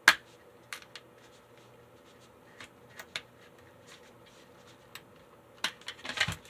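Clicks and light knocks of a Tyco model locomotive and its parts being handled: one sharp click at the start, scattered small ticks, and a quick cluster of rattling clicks near the end.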